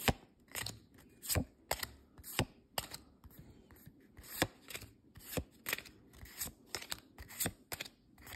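Pokémon trading cards flipped through by hand, one card slid off the front of the stack to the back at a time. Each move gives a crisp little snap of card on card, about two or three a second, with a short pause around the middle.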